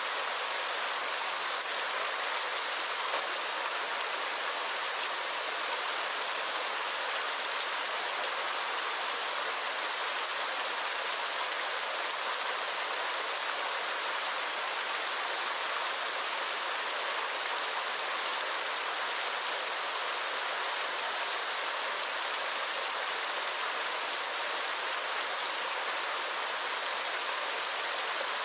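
Running water making a steady, even hiss with no breaks or changes.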